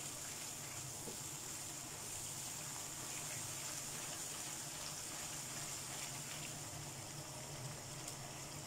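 Tomato-and-onion masala sizzling and bubbling in hot oil in a frying pan, a steady hiss; the masala has been fried until ready.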